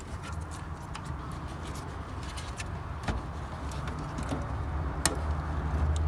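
Light handling clicks and rustles as a wire is worked into a tight spot beside a metal electrical box, a couple of sharper clicks among them, over a low rumble that grows louder near the end.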